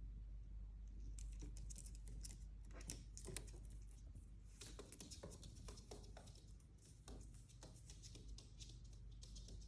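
Near silence: quiet room tone with a low hum and scattered faint clicks and scratches.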